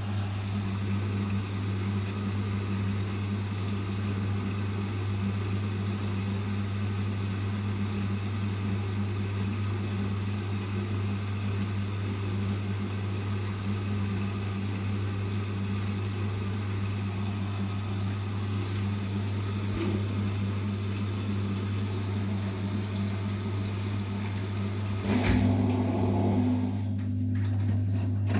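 Vestel CMI 97302 washing machine running a 70°C cotton wash: a steady low hum with a noisy churn above it. About 25 seconds in there is a clunk, and the sound changes.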